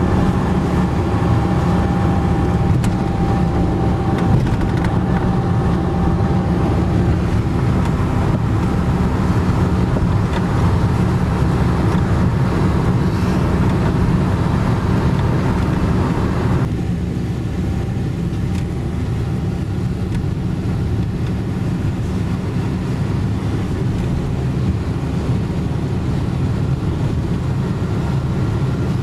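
Steady road and engine noise inside a car driving at speed. About two-thirds of the way in, the higher hiss cuts away abruptly and the sound turns quieter and duller.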